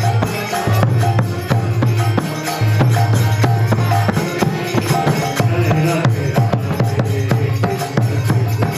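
Kirtan devotional music: a harmonium holding sustained notes under a fast, steady rhythm of drum strokes and jingling percussion.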